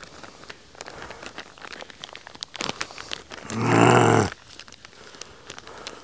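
Plastic bag of zip ties crinkling and being torn open, with scattered crackles and clicks. About halfway through, a short, low grunt-like vocal sound is the loudest thing.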